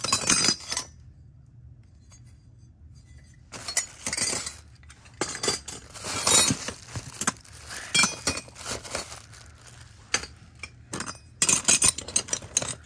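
Solid brass belt buckles clinking against each other as they are rummaged through by hand in a box. Bursts of sharp metallic clinks, with a pause of a couple of seconds shortly after the start.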